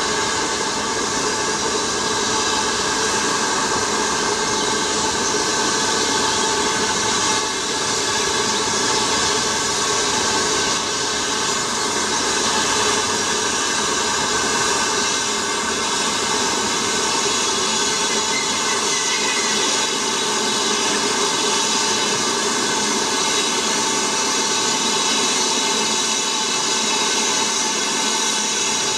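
Steam locomotive moving slowly with a train of goods wagons, giving a steady hiss of escaping steam with no distinct exhaust beats.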